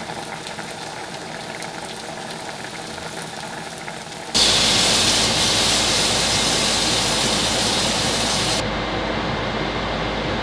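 Steady hiss and rush of cooking on an electric stovetop under a range hood. About four seconds in it jumps suddenly much louder and brighter, then loses its high hiss and drops a little shortly before the end.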